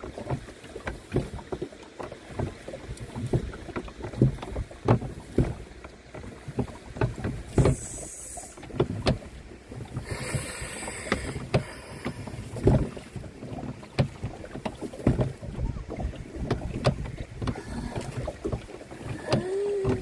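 Canoe being paddled: a steady run of irregular knocks and splashes from the paddle working the water and the boat.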